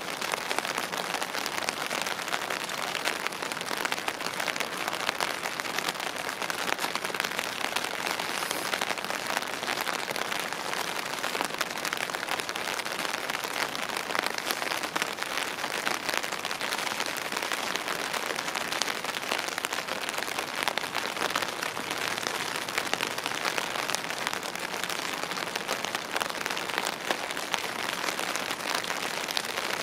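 Steady rain, a dense patter of drops that keeps up without a break.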